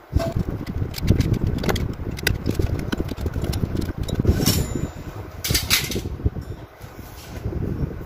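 Scattered sharp clicks and brief scrapes from cutting and handling an electrical wire with a small hand tool, over a steady low rumble.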